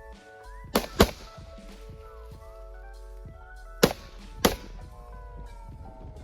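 Background music with four sharp gunshots over it, fired in two quick pairs about three seconds apart.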